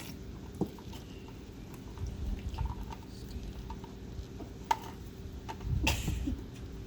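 Small clicks and rustles of hands wrapping electrical tape around twisted wire splices, with a louder rustle near the end, over a steady low hum.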